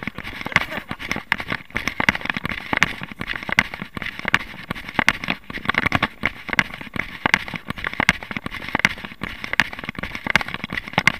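A runner's footsteps with the body-worn camera jolting and rubbing at every stride, heard as quick crackling clicks and knocks, several a second.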